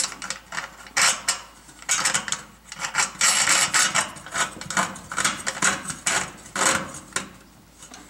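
Metal cable clamp and its locknut being threaded on by hand into an electric range's sheet-metal bracket: irregular sharp metallic clicks, rattles and scrapes.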